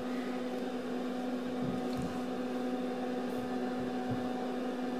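Steady hum of a running Nicolet Pro 32 digitizing oscilloscope, one low steady tone with fainter tones above it. A few faint soft knocks come about two seconds in and again near the end.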